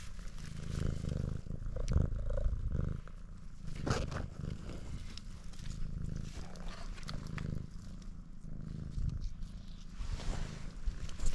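Domestic cat purring close up, the purr coming in cycles of about a second, with a few light rustles in dry grass.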